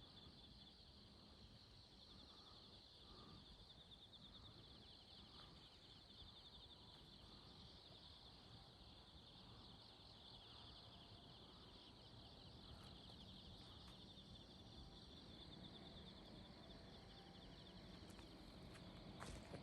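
Faint, steady insect chorus: a high trill that pulses rapidly, over a low background rumble, with a few light clicks near the end.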